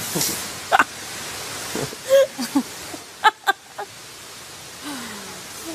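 A woman laughing in a few short bursts over a steady background hiss.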